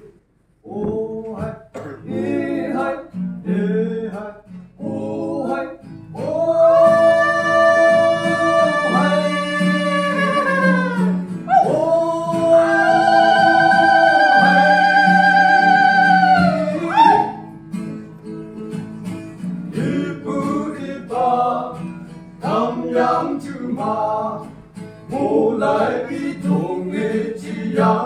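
Male vocal group singing a folk fusion song in harmony, with guitar accompaniment. Short sung phrases give way to two long held chords a few seconds each, then short phrases return.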